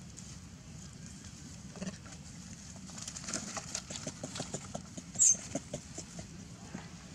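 Dry leaf litter crackling and rustling under macaques moving across it, a quick run of small clicks, with one short high-pitched squeak about five seconds in.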